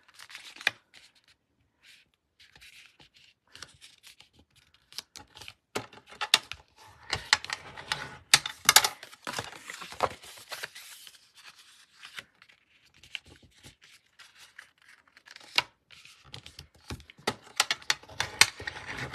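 Heavy cardstock note cards being handled and creased on a desk: scattered rustles, scrapes and small taps of paper, coming in short clusters with quiet gaps, busiest around the middle and near the end.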